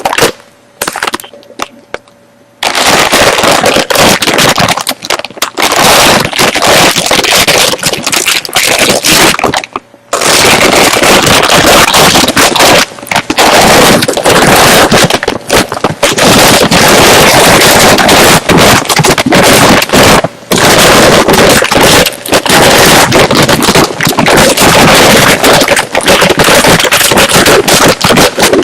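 Chips being crunched and chewed close to the microphone: a loud, dense crackle, nearly unbroken. It starts about two and a half seconds in and breaks off briefly about ten seconds in.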